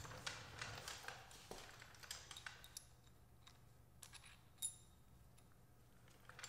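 Faint clicks and taps of steel transmission parts being handled on the gear-stack shaft, with one sharp metallic ping a little before five seconds in.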